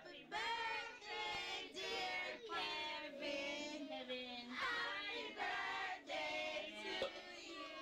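A group of voices, children among them, singing together in held, wavering notes, phrase after phrase.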